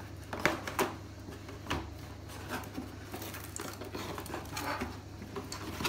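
Roll of cling film being handled in and out of its cardboard dispenser box: a scatter of light knocks and taps.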